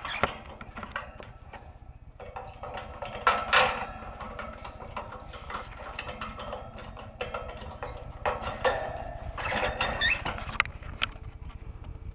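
Cockatiels making their low clucking calls in a few short bursts, with light clicks and scratches between them.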